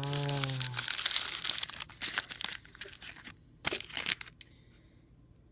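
Candy wrapper crinkling as the freshly torn packet is pulled open and handled. The crinkling is dense for about three seconds, comes back as two short crinkles, then stops. A drawn-out "ooh" is heard at the start.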